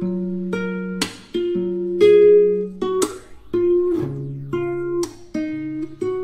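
Background music: a gentle instrumental track of plucked notes, a fresh note or chord about once a second, each fading before the next.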